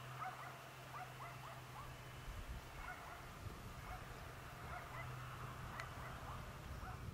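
A flock of geese calling, many short honks overlapping one another, over a low steady hum.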